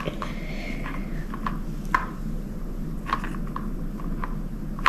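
A few light taps and clicks from small objects being handled, over a steady low room hum.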